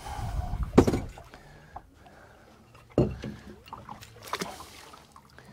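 Two sharp knocks on a fibreglass boat, about a second in and again about three seconds in, as a fish is handled and released over the side. Smaller clicks and a low wash of water against the hull run between them.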